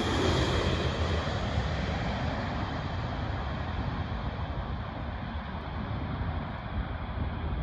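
Engine roar of a British Airways Boeing 747-400 fading away after it has passed low overhead on final approach, the hiss dying first and leaving a low rumble. Wind buffets the microphone throughout.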